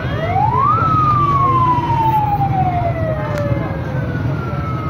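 A siren wails once: its pitch climbs quickly for under a second, then falls slowly over about three seconds. Crowd chatter continues underneath.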